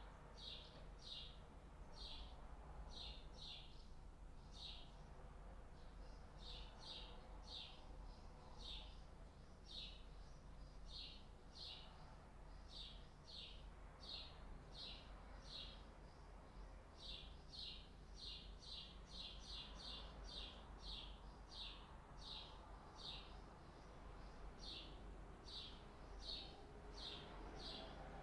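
Faint, repeated high chirps of a bird, short and sharp, about two a second and often in pairs, running on without a break over a low steady hum.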